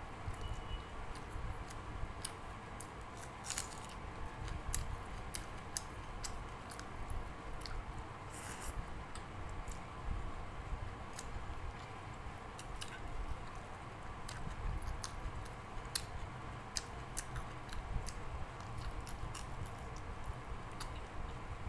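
A person eating rice with dal and fried fish by hand: chewing and wet mouth sounds, with many small clicks scattered throughout, over a steady background hum.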